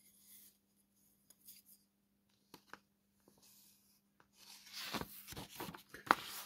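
Paper instruction booklet of a plastic model kit rustling as it is handled and a page is turned over. The rustles are faint at first and grow louder, with a few sharp crinkles, in the last two seconds.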